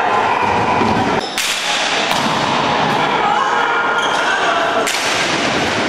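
Sound of a box lacrosse game in an echoing arena: voices calling out over the play, with four sharp knocks as the ball and sticks strike the floor or boards.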